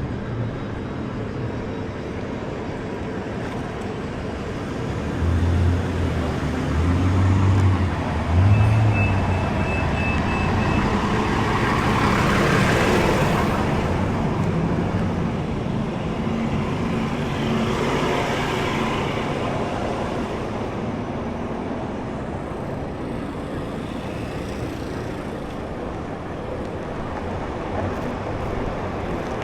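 City road traffic: a steady wash of passing cars, with two louder vehicles swelling up and fading away near the middle.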